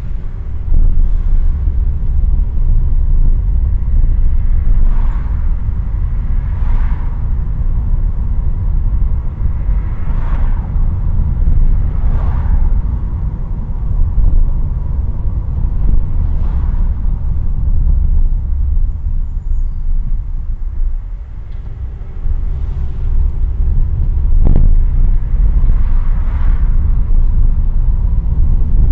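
Road noise inside a moving car, picked up by a windshield dashcam: a steady low rumble of tyres and engine, with hissy swells every few seconds and a brief click late on.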